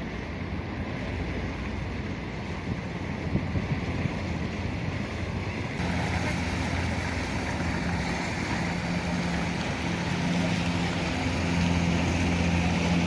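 River water splashing and wind buffeting the microphone from a small boat under way. About six seconds in, a boat engine's steady low hum comes in under the water noise and grows slightly louder.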